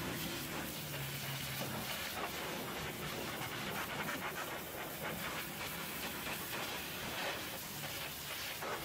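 Hot-water pressure washer lance spraying a steady hissing jet against a semi truck's greasy rear chassis.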